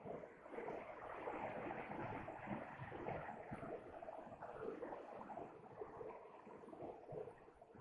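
River water flowing and gurgling, an uneven steady rush.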